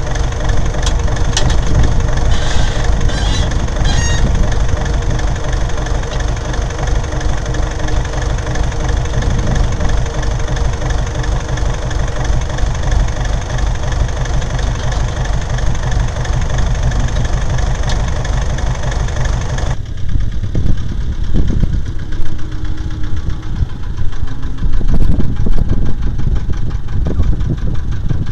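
Tractor diesel engine running steadily at idle, with a few sharp clicks in the first four seconds. About 20 s in the sound changes abruptly to another take of a tractor engine running, a rougher, uneven low rumble that grows louder near the end.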